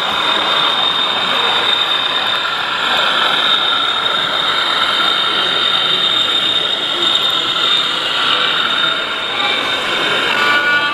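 Model diesel train running on a layout: a steady high whine with continuous running noise from the wheels on the track, over the general background noise of an exhibition hall.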